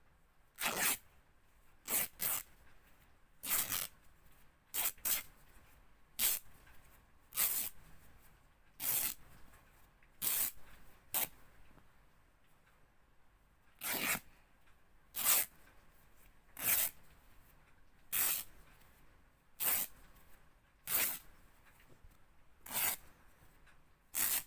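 Fabric being ripped in a series of short, quick tears, one after another about every second or so, some in quick pairs, with a pause of a couple of seconds near the middle.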